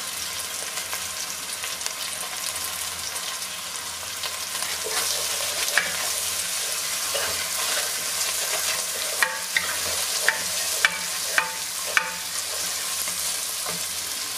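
Rice frying with diced tomato and sofrito in oil in a pot, sizzling steadily while a wooden spoon stirs it: the rice is being toasted before the stock goes in. A run of sharp knocks of the spoon against the pot comes about two-thirds of the way through.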